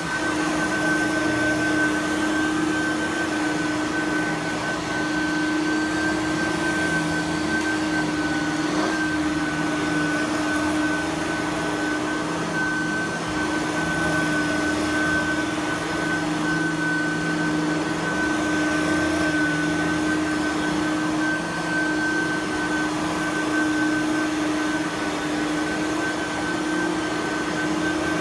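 Simplicity Freedom lightweight direct-air upright vacuum cleaner running steadily, its motor giving a constant whine that holds one pitch.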